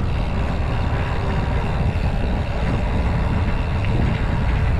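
Steady low wind rumble buffeting the microphone while a mountain bike is ridden.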